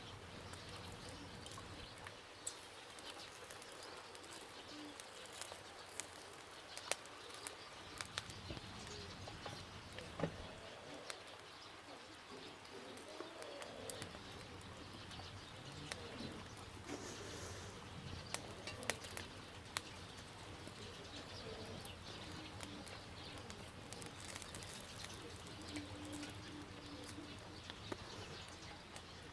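Charcoal and wood fire crackling under grilling pork, faint and irregular sharp pops over a steady low hiss.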